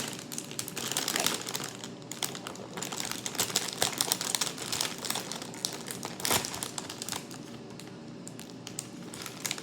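Snack chip bag crinkling and crackling as it is handled and torn open at its notched edge.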